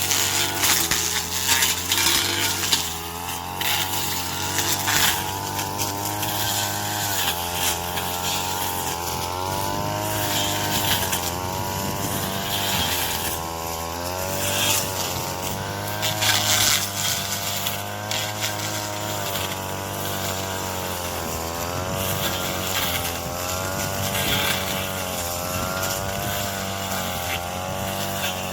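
Yamaha-engined chopping machine running hard while cutting corn stalks. The engine's pitch dips and recovers every few seconds as it takes load, with short crunching strokes from the stalks being cut.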